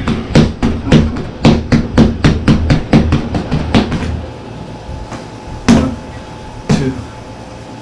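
Fast flurry of punches landing on a wall-mounted QuietPunch punching bag, about four hits a second, breaking off about four seconds in to two or three single hits.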